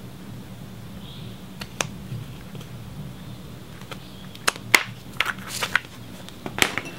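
A few scattered sharp clicks and snaps from hand work with scissors on the threshold's rubber strip, most of them in the second half, over a low steady hum.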